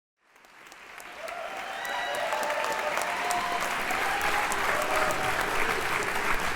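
Large crowd applauding, fading up from silence over the first couple of seconds into steady, dense clapping, with some voices mixed in.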